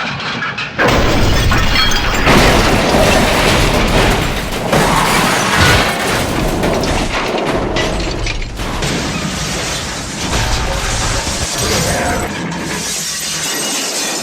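Cartoon crash sound effects: a long run of clattering, shattering crashes that start with a loud crash about a second in, with music underneath.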